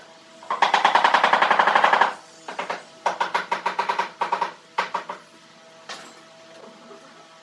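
Several runs of rapid, sharp mechanical clicking, about a dozen strikes a second, each run lasting from half a second to a second and a half, with a single click near the end.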